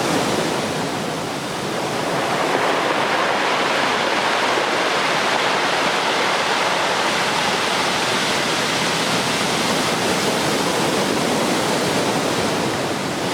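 Ocean surf breaking on the beach under a typhoon swell: a steady, continuous wash of waves.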